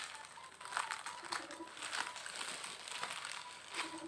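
Packaging crinkling and rustling in irregular bursts as it is handled during the unwrapping of a handbag.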